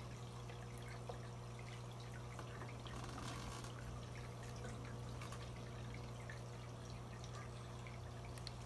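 Faint steady low hum, with a few light clicks and rustles of small motor parts being handled.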